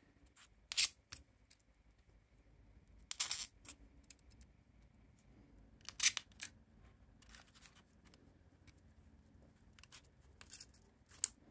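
Paper pinning strips being handled and pressed down over an insect wing on a foam pinning board: a handful of short, dry, papery rustles and scrapes a few seconds apart.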